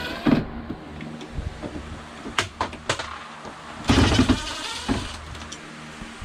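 Cordless drill whirring briefly at the start as screws are backed out of the shower brackets, then a few sharp clicks and a loud clatter of parts being handled about four seconds in.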